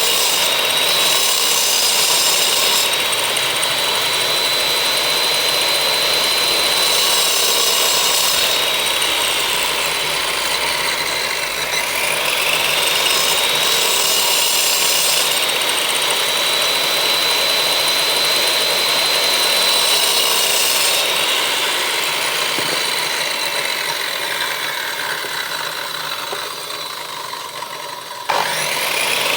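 A high-speed electric power tool working wood: a steady, high motor whine with cutting noise over it. The whine sags in pitch twice as the tool bites into the wood, and springs back up near the end as the load comes off.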